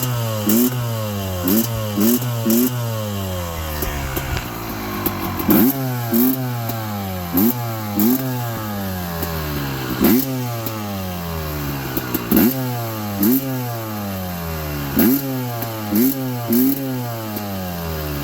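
1995 Yamaha WR250Z's single-cylinder two-stroke engine running on its second heat cycle after a ground-up rebuild. The throttle is blipped about fifteen times, each rev shooting up quickly and falling back slowly to idle.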